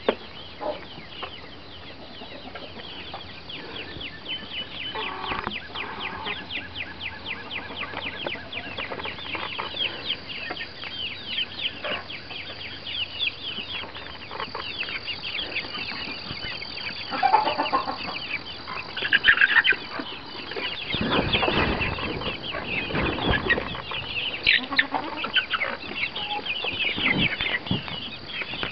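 Chickens clucking, over a long run of rapid, fast-repeating clicks and rustles, with a few louder calls a little past the middle.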